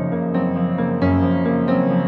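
Background piano music, with notes struck about every half second.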